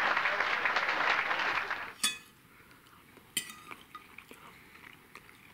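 Applause for about two seconds, cutting off suddenly. Then a metal fork clinks twice against a ceramic dinner plate, about a second and a half apart, each clink ringing briefly.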